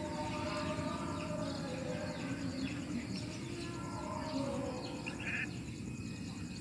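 Distant shouts and calls of football players across an open pitch, over steady outdoor background noise.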